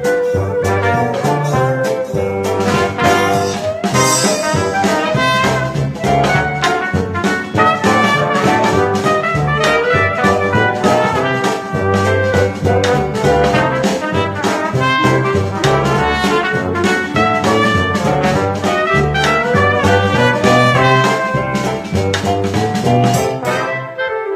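Upbeat jazzy instrumental background music led by brass horns over a steady beat, with a bright crash about four seconds in.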